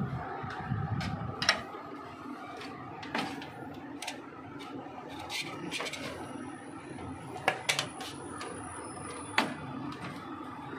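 Scattered clicks and knocks of a Sony VPL-VW590ES projector's plastic cover panel and metal chassis being handled and worked loose, several sharp ones spread through it.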